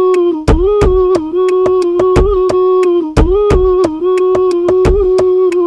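Music: a pop song's instrumental stretch, with one long held note over a fast, steady drum beat. The note breaks off and comes back about half a second in and again about three seconds in.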